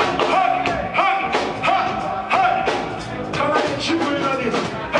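Reggae band playing live: a voice sings long held notes over drums, bass and guitar, with drum hits landing at a steady, even pace.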